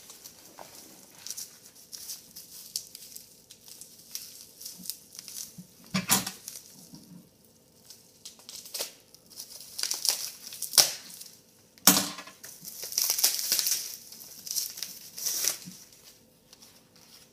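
Packaging being crinkled and torn open by hand in scattered bursts, with a sharp knock about six seconds in and another about twelve seconds in.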